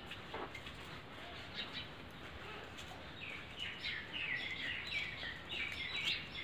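A songbird singing: a quick run of short chirping notes, stepping up and down in pitch, begins about three seconds in over a faint outdoor hiss.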